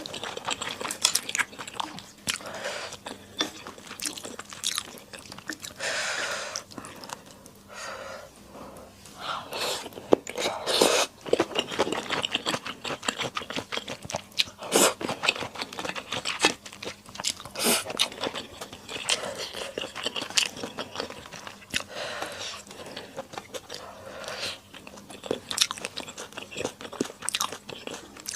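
Close-up eating sounds: a person biting, chewing and crunching food from a Sichuan mala skewer hotpot with thick Chinese glass noodles, an irregular run of wet smacks and sharp clicks.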